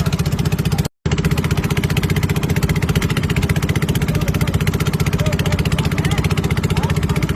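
A small engine running steadily with a rapid, even thudding. The sound cuts out completely for an instant about a second in.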